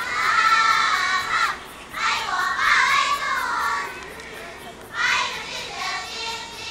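Group of young girls' voices together in short, high-pitched phrases, three times with brief pauses between; the last is short and fainter.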